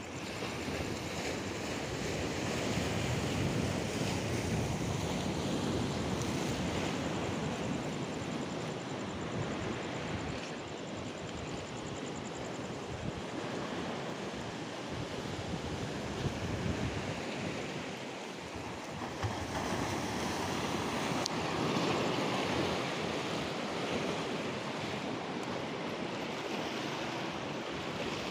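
Sea surf washing onto the shore in a continuous rush that slowly rises and falls, with wind on the microphone.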